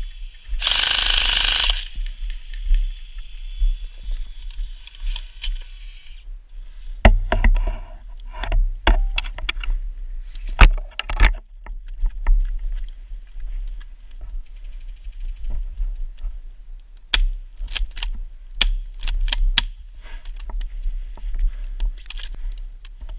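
Airsoft SAW light machine gun firing one full-auto burst of about a second near the start, a fast mechanical buzz. Scattered sharp clicks and knocks follow later.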